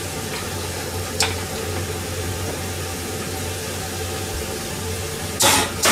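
Steady kitchen background noise: an even hiss over a low hum, with a sharp click about a second in and a short, loud clatter near the end.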